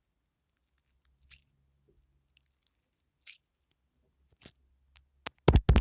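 Foam being squished and crackled right against the microphone in short crackly bursts, then a quick run of loud, close thumps near the end.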